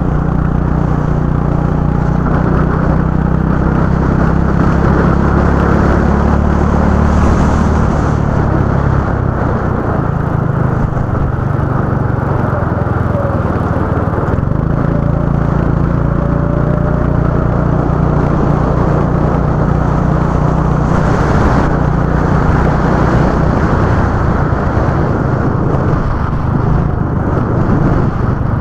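Go-kart engine running loudly and steadily at speed, its note shifting a few times as the throttle changes.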